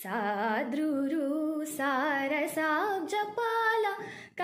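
A young woman singing a Carnatic kriti solo, holding and bending the notes in wavering ornaments. She breaks off for a short breath near the end.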